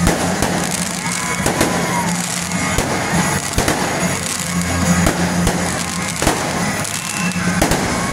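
Aerial fireworks going off, a rapid, irregular string of sharp bangs and crackles, with music playing underneath.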